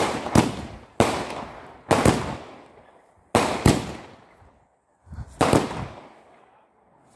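Aerial fireworks bursting overhead: about eight sharp bangs at uneven intervals, some in quick pairs, each trailing off over a second or so. There is a short lull a little past the middle.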